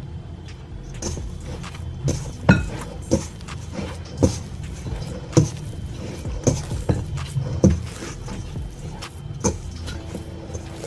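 Hands kneading and folding sticky bread dough in a stainless steel bowl: irregular soft thumps and squelches, roughly one a second, as the dough is pressed and pushed against the bowl.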